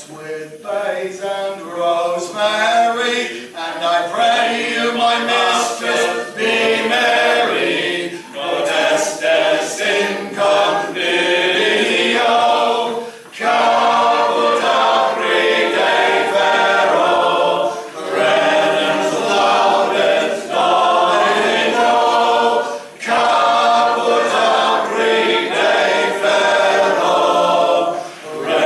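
A group of voices singing a folk song together, with short breaks between lines.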